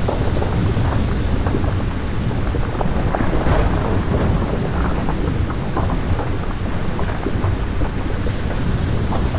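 Thunderstorm: steady heavy rain over a constant low rumble of thunder.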